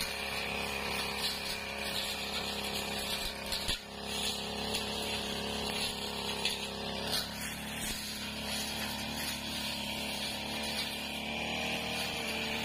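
Wesco backpack brush cutter running steadily at working speed as its Fit Pro blade cuts through weeds and grass; the engine note shifts briefly about seven seconds in.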